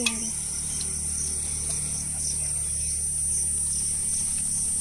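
Insects shrilling steadily at a high pitch, with a softer chirp pulsing about twice a second over a steady low hum. There is a single sharp knock at the very start.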